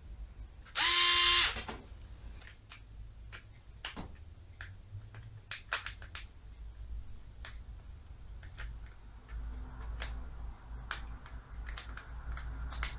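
Small cordless electric screwdriver's motor spinning briefly, a steady whine lasting under a second that stops abruptly. It is followed by scattered clicks and taps of buttons being pressed and a bit being pushed into the chuck.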